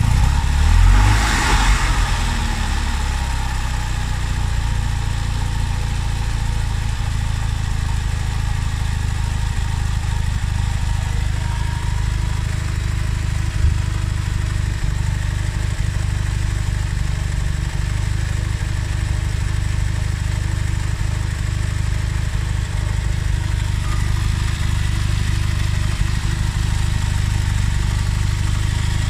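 Fiat 126 Bis 700 cc two-cylinder engine idling steadily after a cold start, heard close up in the engine bay. There is a brief louder burst about a second in.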